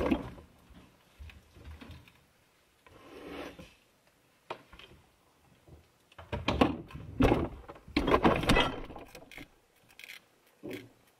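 Refrigerator door opening with a sharp knock, then scattered clatters, knocks and rubs of bottles and jars being handled inside the fridge, busiest a little past the middle.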